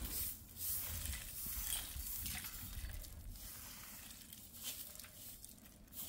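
Short straw hand broom sweeping dusty bare ground: repeated scratchy swishes, about one stroke a second, growing fainter toward the end.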